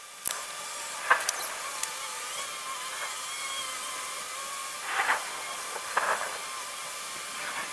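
Thunderstorm audio played back fifteen times faster: a steady hiss with scattered crackles, a few sharp ones about a second in and longer crackly bursts about five and six seconds in. The crackling is the sped-up thunder.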